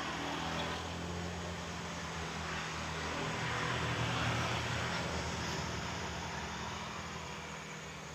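A motor vehicle passing on the road close by: engine hum and tyre noise swell to their loudest about four seconds in, then fade away.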